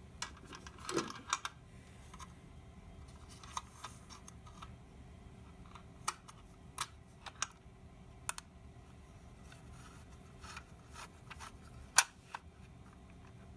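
Small, scattered clicks and taps from a screwdriver, screws and a metal drive bracket as a 2.5-inch SSD is screwed into a mini PC's lid. A sharper, louder click comes near the end.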